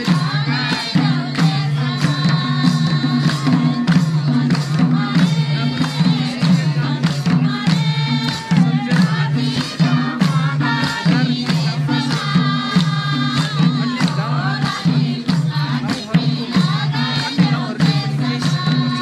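Live Nepali folk music: madal hand drums keep a steady rhythm under a harmonium, with voices singing the melody.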